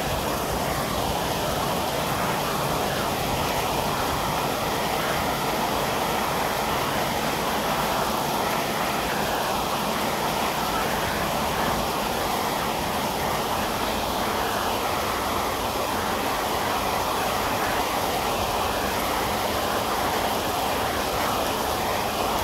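Rain falling steadily, an even, unbroken rush.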